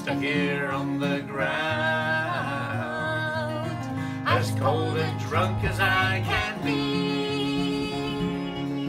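Acoustic guitar playing a country-folk song, with a woman singing the melody over it in two phrases.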